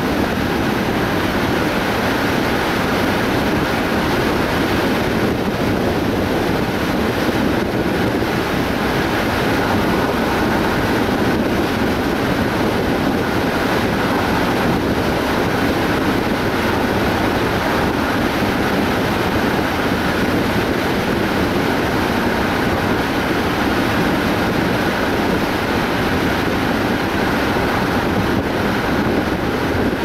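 A car driving at a steady speed: continuous road noise from the tyres, with wind and engine hum.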